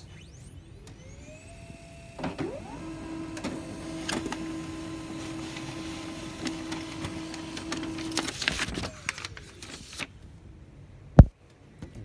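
HP Laser MFP 135a laser printer printing a report page: its motors spin up with rising whines, run at a steady pitch for several seconds while the page feeds, then wind down with falling whines. A single sharp click near the end.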